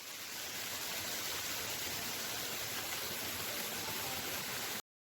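Waterfall rushing: a steady, even noise of falling water that fades in and cuts off abruptly near the end.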